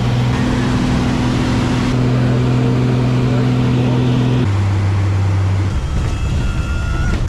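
A vehicle engine running at a steady pitch. It steps to a lower pitch about four and a half seconds in, then drops away into rougher rumbling noise near six seconds.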